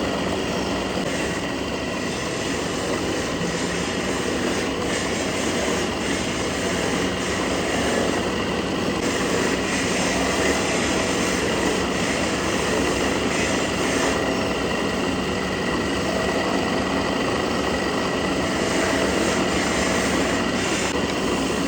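A machine running steadily: a constant low hum under an even, noisy rush that holds at one level throughout.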